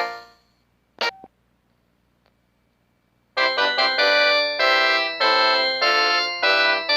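Ringtone melodies played through the SK Color Slider SK-5400 mobile phone's speaker: one melody is stopped at the start, a short key beep sounds about a second in, and after about two seconds of quiet the next ringtone starts with quick repeated keyboard-like notes.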